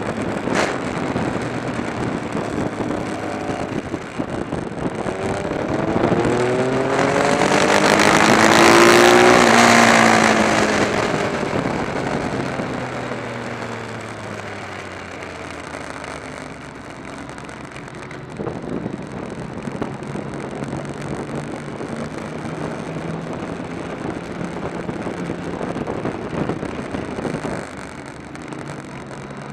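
Motorcycle engine running under way, heard from the bike over rushing wind. About seven seconds in, the engine note climbs and the wind grows loud, peaking near nine seconds. The note then falls away as the throttle rolls off, and it settles back to a steadier cruise.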